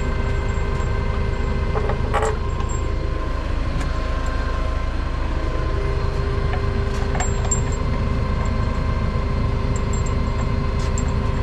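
Heavy-equipment diesel engine running steadily at idle, with a few light metallic clinks of hardware and tools against the wheel.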